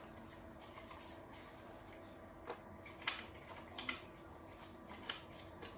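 Faint handling of toy packaging being opened: a few short clicks and rustles, about four, over a steady low hum.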